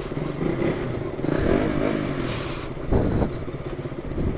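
KTM RC 200 single-cylinder motorcycle engine running at low road speed beside another sport bike. The engine note rises and falls about halfway through, and a short thump comes a little after three seconds.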